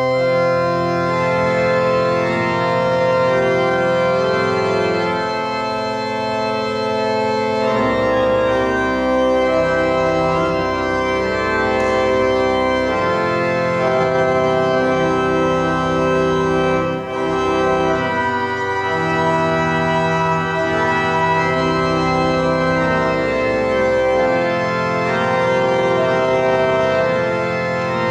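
Church organ playing a slow piece in sustained full chords. Deep pedal bass notes join about eight seconds in and drop out near the end.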